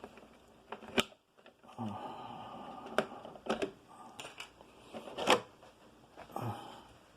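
Handling noise from a plastic-bodied RC truck and the hand-held camera: scattered sharp clicks and knocks, with one louder knock about five seconds in.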